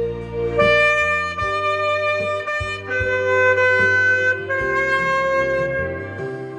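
Saxophone playing a slow hymn melody in long held notes, moving to a new note every second or two, over an accompaniment with bass notes and light beats.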